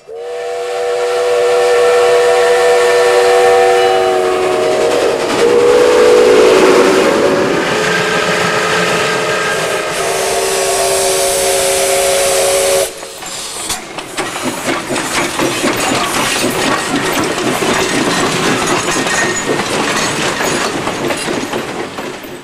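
Steam locomotive whistle blowing long blasts, several tones sounding together, shifting in pitch about five seconds in. About thirteen seconds in it cuts off abruptly to the steady hiss and rapid, uneven chuffing of a working steam locomotive.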